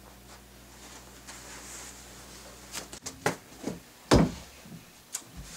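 Footsteps on a wooden staircase: a run of knocks and thuds about half a second apart in the second half, one of them heavier and deeper. Before them there is a faint steady hum.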